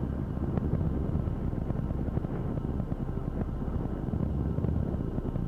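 Steady low rumbling drone with a faint high hum and a few faint ticks, a designed ambience for the inside of a spacecraft in orbit.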